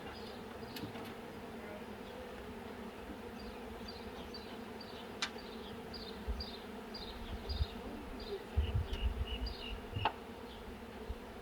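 A swarm of honeybees buzzing in a steady, low hum as they are coaxed into a hive box. A series of short high chirps repeats two or three times a second through the middle, and a brief low rumble comes near the end.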